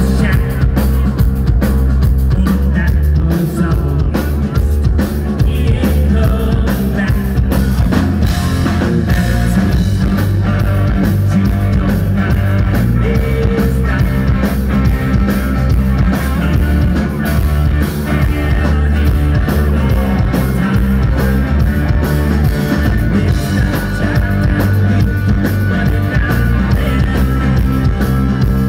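Live rock band playing loudly: electric guitars over a drum kit, with a heavy bass end.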